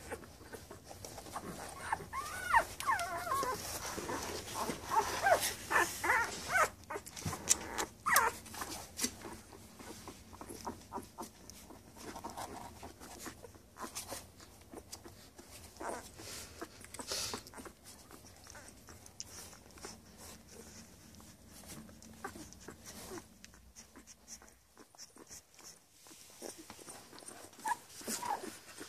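Newborn Labrador puppies, about ten days old and nursing, squeaking and whimpering in high, wavering cries, most of them in the first third. After that come softer clicks and rustling as they suckle and shift against their mother.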